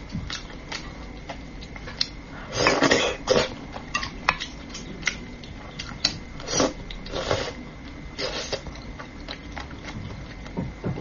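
Close-miked eating sounds of a person eating braised fish: wet slurps and sucking, the longest about three seconds in and more around the middle, among many small smacking mouth clicks.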